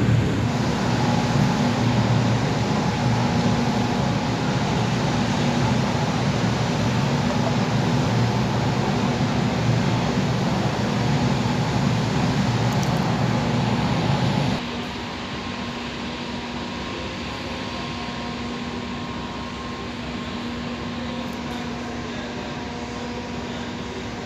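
Steady mechanical drone with a low hum through it, dropping suddenly to a quieter level about fifteen seconds in.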